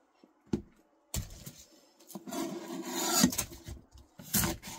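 Chef's knife cutting through an onion on a cutting board: a single knock, then scraping, rasping strokes as the blade saws through the onion and its dry papery skin, the longest stroke a bit past the middle, and a few sharper strokes near the end.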